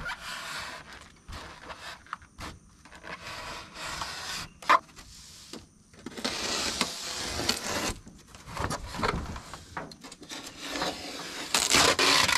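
Utility knife blade drawn through a Styrofoam insulation board in several separate scraping strokes, the longest and loudest about halfway through and near the end, with one sharp click a little before halfway.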